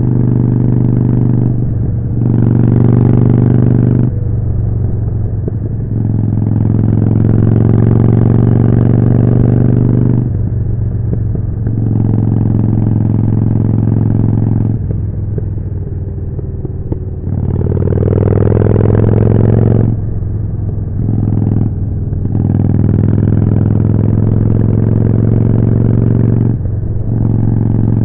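Harley-Davidson Forty-Eight's 1200 cc V-twin running through a Jekill & Hyde exhaust under way, pulling hard with several short dips as the throttle is closed for gear changes, then picking up again. There is one long rising acceleration in the middle.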